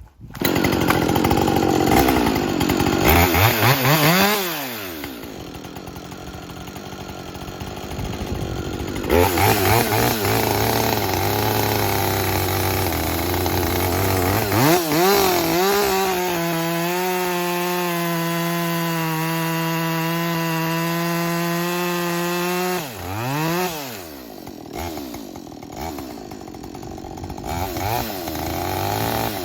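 Freshly rebuilt Husqvarna 562 XP two-stroke chainsaw, 24-inch bar with full-chisel chain, running and cutting wood. The engine revs up and falls back several times, holds a steady high pitch for several seconds in the middle, then drops back toward idle.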